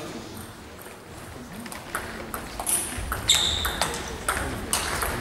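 Table tennis rally: the ball clicking sharply off bats and table in a quick back-and-forth, about two hits a second. The hits start about two seconds in, each with a short bright ring.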